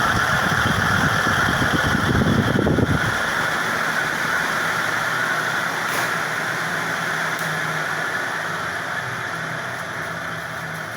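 Commercial ceiling fan, a 1985 Novelli Tókio, running with its worn, partly seized 6203 bearings noisy, along with the rush of its blades. About three seconds in, the low rumble cuts off and the fan winds down, the sound slowly fading.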